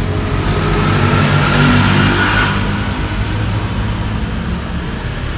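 A motor vehicle engine running steadily, growing louder and briefly higher in pitch about two seconds in, then easing back.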